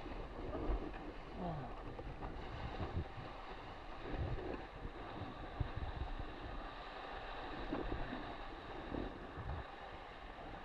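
Wind buffeting the on-board camera's microphone over water rushing and splashing along the hull of an RS600FF foiling sailing dinghy, with irregular gusts and thumps.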